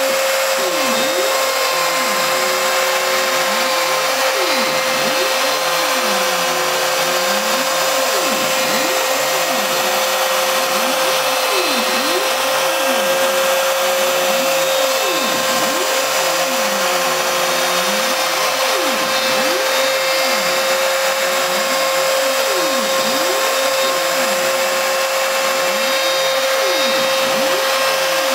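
CNC router running with a steady high whine from its spindle while the bit cuts an S-shaped groove into a wooden block. Lower tones sweep up and down over and over as the bit traces the letter's curves.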